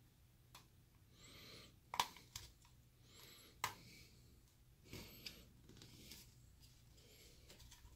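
A small screwdriver prying and scraping along the seam of a plastic Wemo smart-plug case, working its snap clips loose. Faint scrapes are broken by a few sharp plastic clicks.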